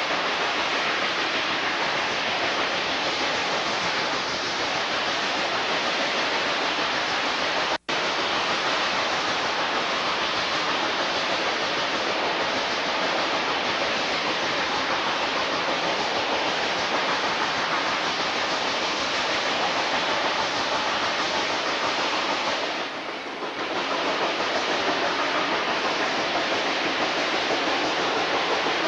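Steady rushing noise of a moving steam train heard from alongside the locomotive, with no clear exhaust beat. The sound cuts out for an instant about eight seconds in and dips briefly about three-quarters of the way through.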